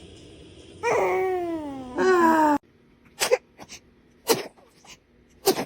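A baby's drawn-out cry falling in pitch, then a run of short, sharp baby sneezes, three loud ones about a second apart.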